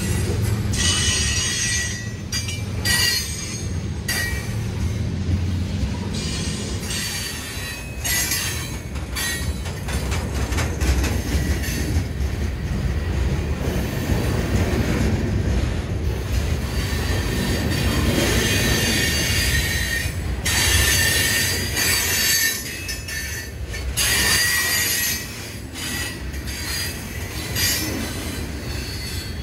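Freight cars rolling past on a curve: a steady rumble of wheels on rail, with high-pitched wheel squeal coming and going several times and some rattling.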